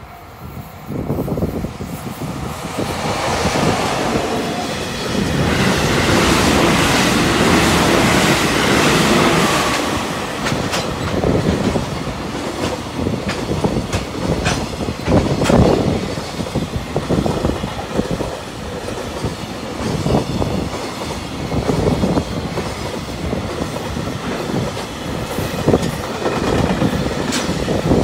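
An EF66 electric locomotive hauling a long container freight train passes at speed. The locomotive's noise swells over the first few seconds and stays loud for several seconds, then the container wagons' wheels clatter over the rail joints in an uneven clickety-clack for the rest of the pass.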